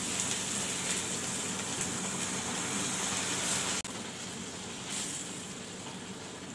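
Water poured into a hot pan of fried paneer and masala, sizzling and hissing steadily. About four seconds in it drops suddenly to a quieter sizzle.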